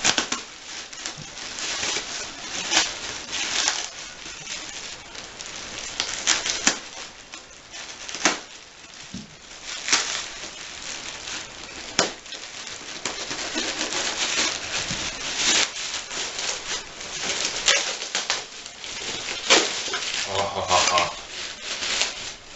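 Packing material and padding rustling and crinkling as a boxed antique typewriter is unwrapped, with several sharp clicks and knocks along the way and a brief squeak near the end.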